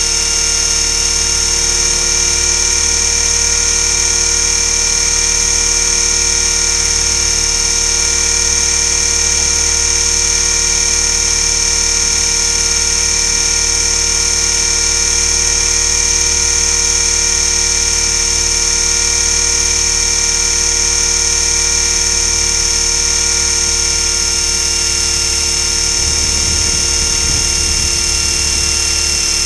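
Align T-Rex 500 electric RC helicopter's motor and drivetrain whining steadily, a high, even whine with several fixed pitches, picked up by a camera zip-tied to the helicopter's frame.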